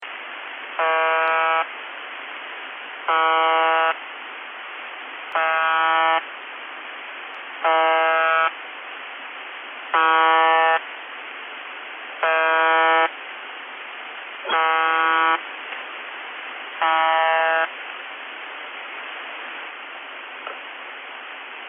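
UVB-76 ('The Buzzer') shortwave station on 4625 kHz heard through a radio receiver: a harsh buzz lasting just under a second, repeated eight times about every two and a half seconds over steady radio static. The buzzing stops a few seconds before the end, leaving only static.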